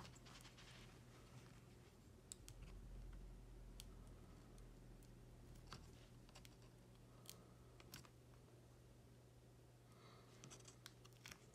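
Faint, scattered small clicks and taps of fingers and a plastic spudger handling a laptop motherboard's display cable connector and the tape over it, with a quick run of clicks near the end.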